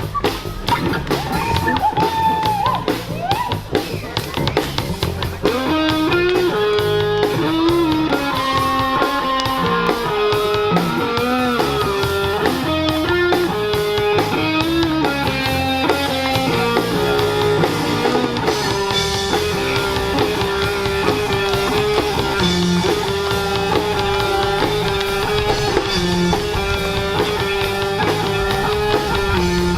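Live band music: a drum kit playing a fast, steady beat under guitar and bass, with a melody line coming in about five seconds in.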